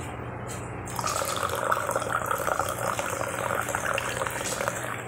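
Coffee poured from a thermos flask into a ceramic mug, a steady stream of liquid that starts about a second in, topping up the mug.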